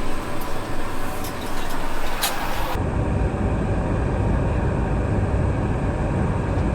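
A busy hiss with a few sharp clicks, then an abrupt change about three seconds in to a steady low rumble of aircraft noise inside an airliner cabin.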